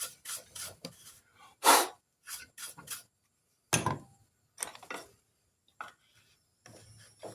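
A hand tool scraping and cutting into a hard walnut gunstock in a run of short, irregular strokes with brief pauses, the strongest about two seconds in and again near four seconds.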